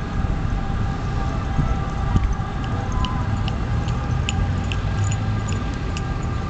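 Outdoor ambience: a heavy, uneven low rumble of wind on the microphone over a distant traffic hum, with a scatter of short high ticks from about two and a half seconds in.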